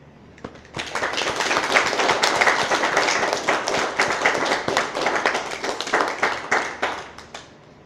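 Small audience applauding: many separate claps start about a second in, hold for several seconds, then thin out and stop near the end.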